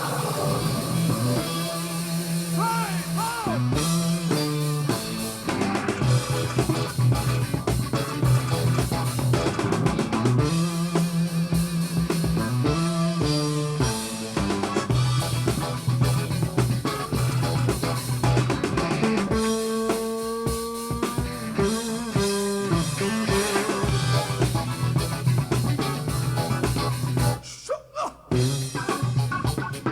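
JBL LSR305 active studio monitors playing a funk track with a busy bass guitar line, drum kit and guitar. The music drops out briefly near the end, then comes back in.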